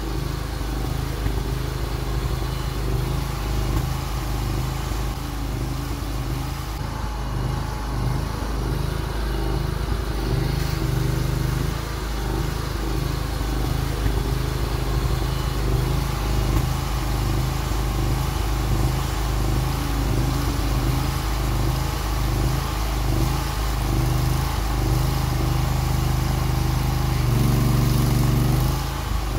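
Engine of a homemade hydraulic mini excavator running continuously while the boom, arm and bucket are worked. Its note wavers and shifts, and near the end it settles into a steadier, slightly louder run.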